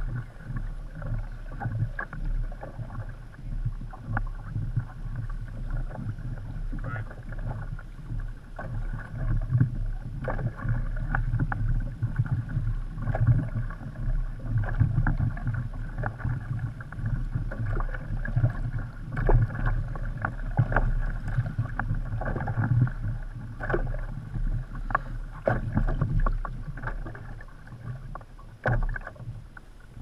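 Water sloshing and slapping against the hull of a Hobie Adventure Island sailing kayak under way, with frequent irregular knocks and splashes.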